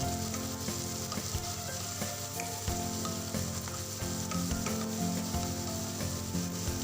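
Chopped onion, garlic and chili sizzling steadily as they shallow-fry in melted butter in a pan, with a spoon or spatula stirring and clicking against the pan now and then.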